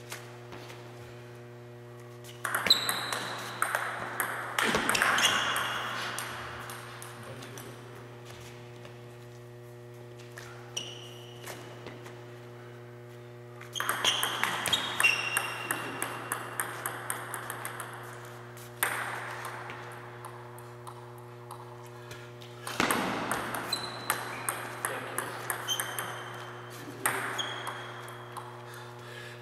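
Table tennis ball hit back and forth in three rallies: quick sharp clicks of the celluloid ball off rubber paddles and the table top, each rally lasting a few seconds, over a steady low electrical hum.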